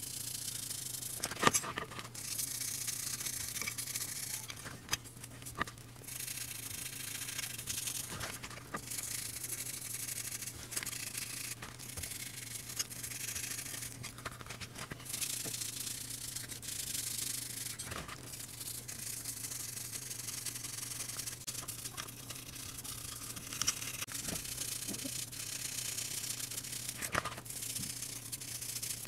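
Small bristle brush scrubbing the metal body and chassis parts of a model ambulance in soapy water, a hissing scrub that comes in stretches with short pauses. There are a few sharp clicks along the way.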